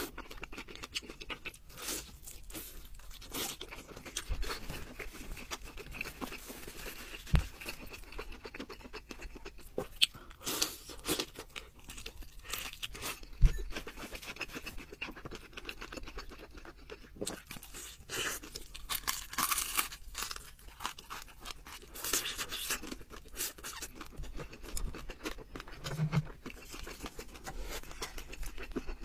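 Close-up eating sounds: a person biting into and chewing crispy fried food, with irregular crunches and crackles.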